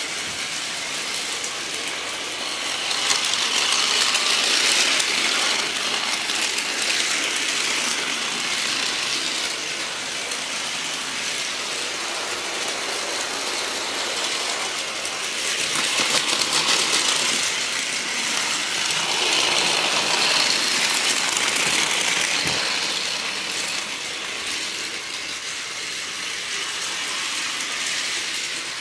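Battery-powered Plarail toy trains running on plastic track: a steady whirr and clatter of small geared motors and wheels, swelling louder three times.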